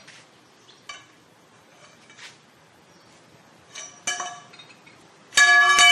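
Scattered metal clinks of a lug wrench and steel pipe extension working on a truck's wheel nuts. Near the end a much louder sustained ringing tone with several steady pitches sounds for about a second.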